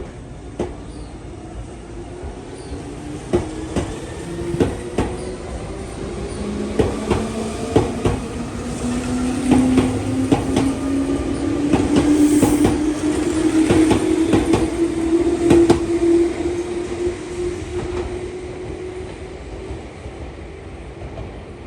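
Meitetsu 1000/1200 series Panorama Super electric train accelerating away from a station. Its traction motors hum with a pitch that rises slowly, and the wheels click over rail joints and points. It is loudest about two thirds of the way through as the cars pass, then fades.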